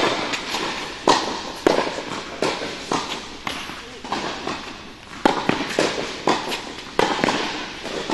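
Tennis balls struck by rackets and bouncing on an indoor hard court during a rally: sharp knocks about every half second to a second, each echoing in the hall.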